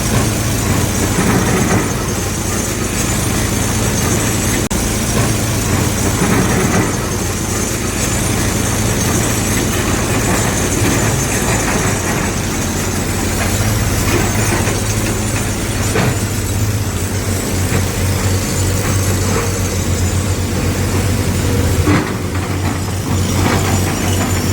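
Diesel engine of heavy earth-moving machinery running steadily, with a couple of short knocks.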